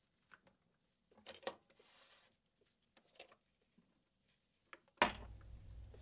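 Faint metal-on-metal clicks and clinks from the mini lathe tailstock being handled and locked down on the bed, the loudest pair about a second and a half in. About five seconds in there is a sharper knock, followed by a low hum.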